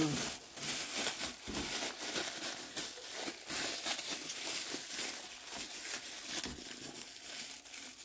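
Thin clear plastic bag crinkling and rustling as hands open, fill and twist it, with many small irregular crackles.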